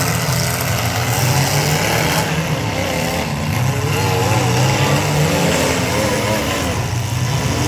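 Engines of several mid-size demolition derby cars running and revving together, a loud steady drone whose pitch wavers up and down as the drivers throttle.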